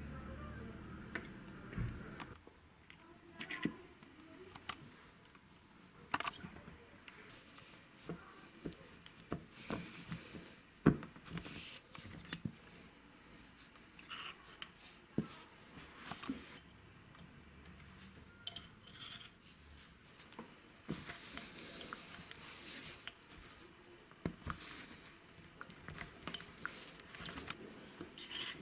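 Light metal clicks, knocks and scrapes from handling a restored mini bench vise: its sliding jaw moved along the bar, and the sliding T-handles of its clamp screw and main screw worked back and forth. One louder clack comes about eleven seconds in.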